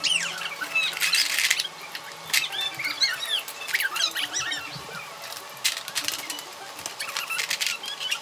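Children's small plastic building parts clattering and being handled, mixed with many short high squeaky sounds.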